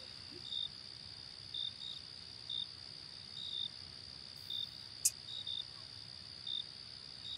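Crickets chirping: short high chirps at irregular intervals over a steady high insect trill, with one sharp click about five seconds in.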